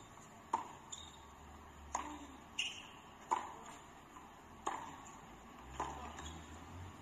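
Tennis rally: the ball struck back and forth by rackets, a sharp pop a little over a second apart, with a few fainter knocks between the strikes.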